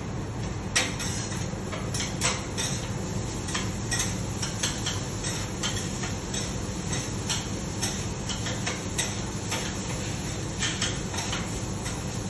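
Cooking utensils clicking and tapping on a hibachi griddle in quick, irregular strokes, over a steady low background hum.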